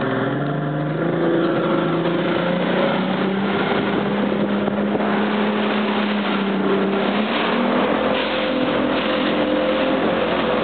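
Motorboat engine running, its pitch rising over the first second or two and then holding steady, with water and wind noise.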